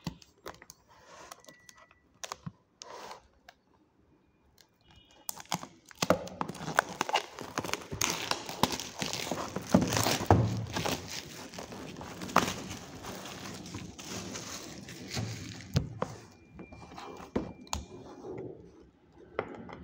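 The tape security seal on a cardboard box being slit and torn open with a key, with scraping, crinkling and knocks as the box is handled. It is sparse clicks at first, then dense tearing and rustling from about six to sixteen seconds in.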